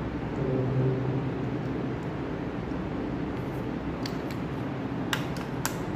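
Steady background noise with a low hum, then a few light clicks near the end.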